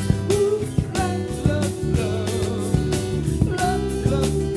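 A small band playing a soft-rock song: strummed acoustic guitar, bass guitar and hand percussion keeping a steady beat, with a man singing lead.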